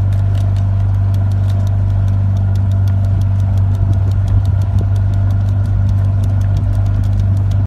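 Motorboat engine running steadily under way, a loud low hum with sharp ticks several times a second over it.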